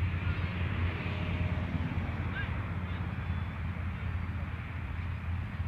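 Wind on the microphone, a steady low rumble with hiss above it, mixed with the faint drone of radio-controlled model airplanes flying high overhead.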